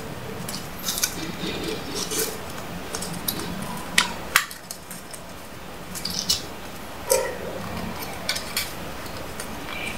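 A paper banknote being folded and creased by hand: irregular crinkling and sharp crackles of the crisp note, the loudest a little after four seconds in.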